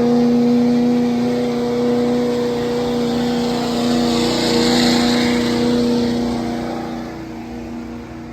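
A pulling truck's engine held at high, steady revs under full load during a pull on the track. Its pitch settles and holds, then the sound fades near the end as the truck slows or moves away.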